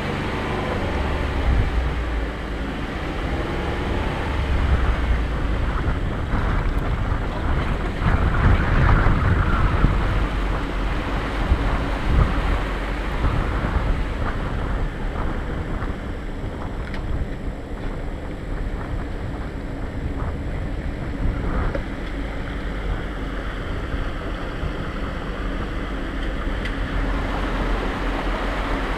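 A 4x4 driving slowly over a rocky dirt trail: a low engine rumble with irregular knocks and crunches from the tyres and suspension on the stones, and wind buffeting the hood-mounted microphone.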